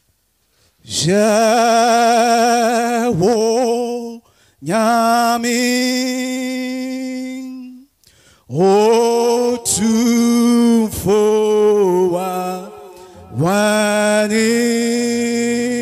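A man's solo voice singing slowly into a microphone, unaccompanied, in four long phrases of held, wavering notes with short breaths between. Low steady tones come in underneath near the end.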